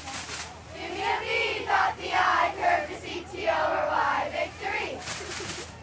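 Youth cheerleading squad of girls chanting a cheer together in unison, in short shouted phrases.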